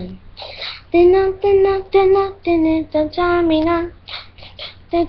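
A child singing a wordless tune: a quick string of short held notes that starts about a second in.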